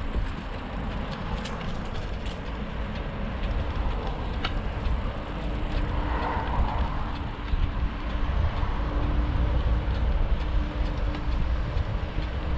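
Steady low rumble of wind on the microphone and tyres rolling on pavement from an electric bike ridden at about 15–17 km/h under pedal assist. A faint steady hum joins about five seconds in, with a few light ticks.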